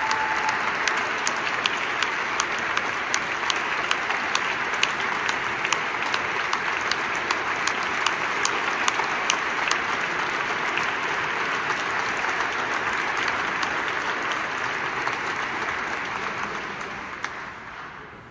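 Audience applause in a large stone chapel, a steady mass of clapping that dies away over the last couple of seconds.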